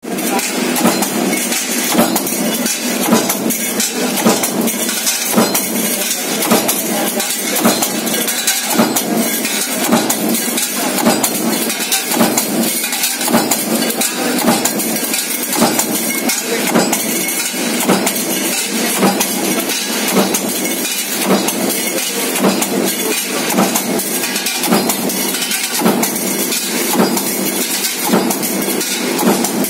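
Power press running a progressive stamping die on sheet-metal modular boxes: a steady machine din with a metallic strike repeating about once a second as the press cycles.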